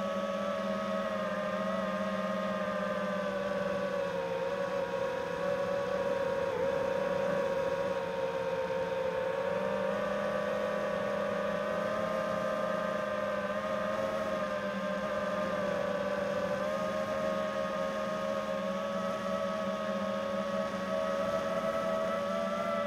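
The brushless motors and propellers of a 5-inch GepRC Mark4 FPV quadcopter whine at a fairly steady throttle. The pitch dips a little between about four and nine seconds in, then rises again.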